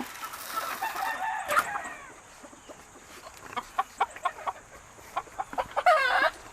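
Game chickens in their pens: a rooster crowing in the first couple of seconds, then a run of short clucks, and a loud wavering call near the end.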